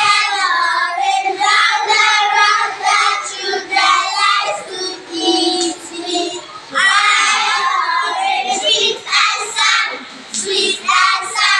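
Young children singing, with held notes in the middle.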